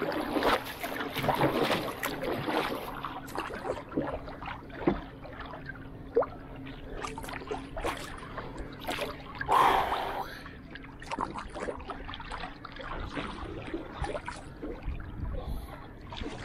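Water lapping and splashing against the hull of a small wooden canoe, in irregular splashes, one louder splash about ten seconds in.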